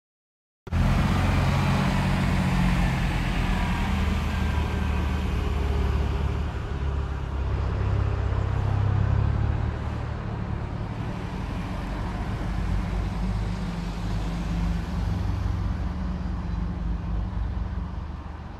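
Road tourist train's tractor unit running as it pulls its carriages past, a steady low engine rumble. It starts suddenly just under a second in and grows fainter over the last few seconds.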